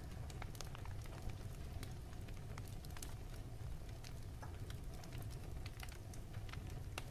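Faint background noise of a home voice recording: a low steady hum with scattered faint clicks and ticks.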